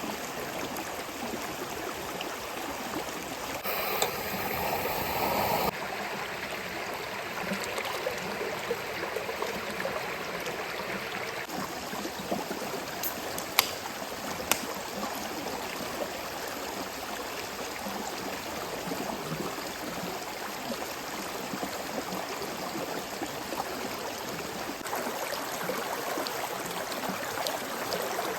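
Mountain stream flowing: a steady rush of water, a little louder for a couple of seconds near the start, with two sharp clicks about halfway through.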